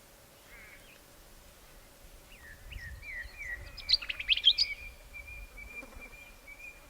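Small birds calling: a run of quick chirps, then a loud burst of sharp notes about four seconds in, then a thin high note held for nearly two seconds.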